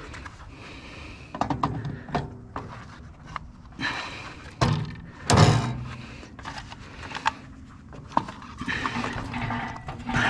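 Metal clanks, knocks and scraping from hand tools working loose the fittings on a water heater being stripped for scrap, with one heavy thump about halfway through.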